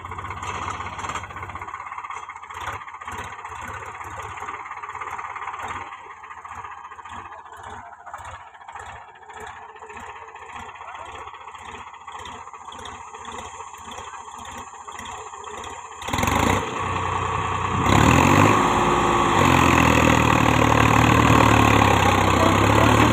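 Solis Yanmar 5015's three-cylinder diesel engine running at low speed, then revved hard about two-thirds of the way in, its pitch rising and falling as the tractor strains to pull the trailer out of deep mud.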